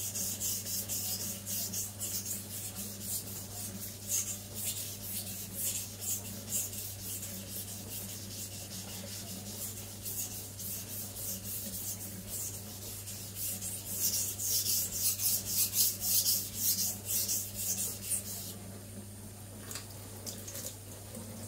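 Steel chef-knife blade (Zwilling Five Star) stroked rapidly back and forth on a wet Naniwa Aotoshi 2000-grit waterstone, a quick run of scraping rubs; the bevel is being thinned and convexed at a raised angle. The strokes are loudest shortly before they stop near the end, leaving the steady hiss of the running tap.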